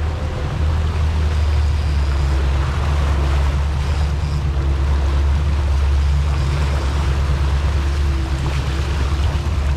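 A boat's engine running steadily under way as a low, even drone, with the wake rushing and splashing behind the stern.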